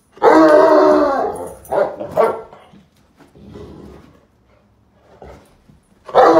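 Bloodhound giving a long, deep, drawn-out bark, then two short barks; another long bark starts near the end.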